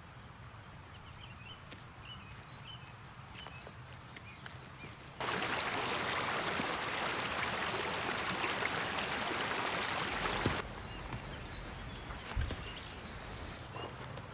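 Small birds chirping in short, repeated falling calls over a quiet outdoor background. About five seconds in, the sound cuts abruptly to a loud, steady rushing noise for about five seconds, then cuts straight back to the birdsong, with a dull thump near the end.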